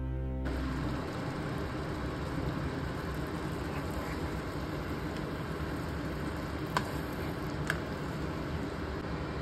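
Background harp-like music cuts off about half a second in, leaving a steady hiss from the pan of manchurian sauce on the gas stove. About two-thirds of the way through come two sharp taps, a second apart, of the spatula against the pan.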